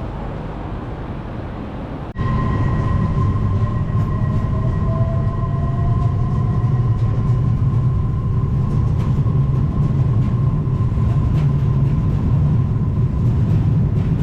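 Train running: a steady rumble that jumps louder after an abrupt cut about two seconds in, then goes on with a steady whine and a faint rising tone above it.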